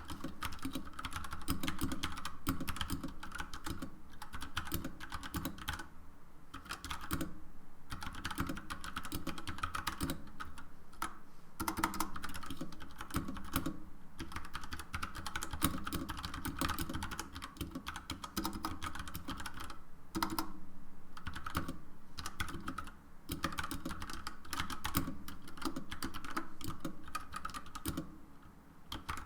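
Mechanical keyboard with Gateron Brown switches and textured vintage-style keycaps being typed on steadily, a fast run of key clicks broken by a few short pauses.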